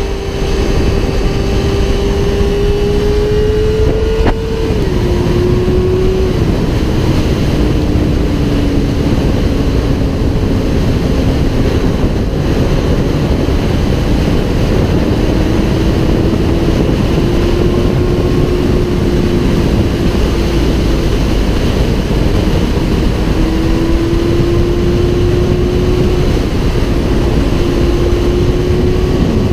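Sport motorcycle ridden hard at high revs, its engine note buried in heavy wind rush on the camera. The pitch climbs slowly, drops with an upshift about four seconds in and again about six seconds in, then holds steady and rises gently again.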